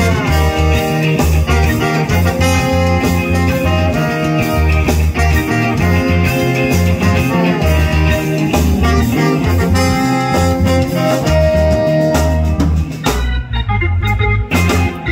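Live band playing reggae: trombone and saxophone horn lines over electric guitar, Hammond organ, bass and drums. About thirteen seconds in the horns and cymbals drop out, and the sound thins to bass and organ.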